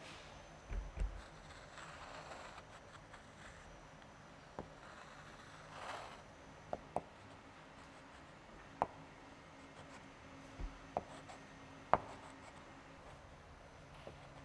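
Chalk writing on a chalkboard: faint scratchy strokes of the chalk across the board, with a string of sharp taps as the chalk strikes it.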